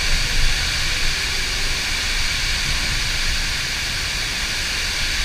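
A waterfall's falling water rushing steadily: an even, dense hiss with a low rumble underneath.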